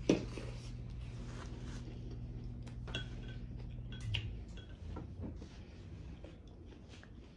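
Close-miked eating sounds: a sharp bite into a cheeseburger right at the start, then soft chewing with light clicks of handling food. A steady low hum runs underneath and stops about four seconds in.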